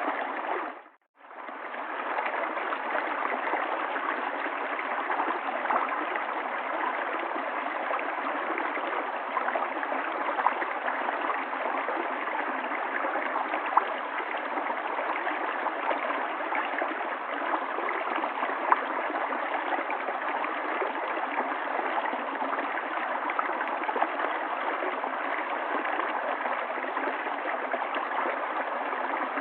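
River water flowing in a steady rush, with faint small splashes and gurgles in it. It cuts out for about half a second about a second in, then carries on unchanged.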